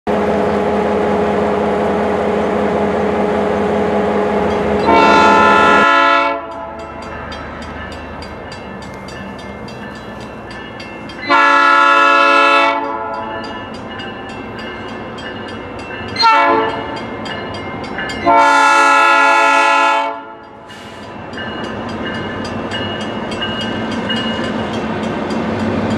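Diesel switcher locomotive sounding its horn in the long-long-short-long pattern used at a grade crossing, over the running of its diesel engine. Train rolling noise grows louder near the end as it approaches.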